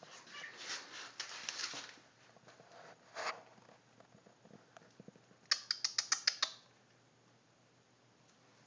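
A cat rubbing against the phone, its fur brushing and rustling over the microphone. A little past halfway comes a quick run of about eight sharp, high clicks within about a second.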